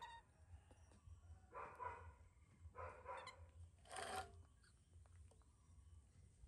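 Baby macaques making faint, short whimpering calls, three within a few seconds, the last, about four seconds in, sharper than the others.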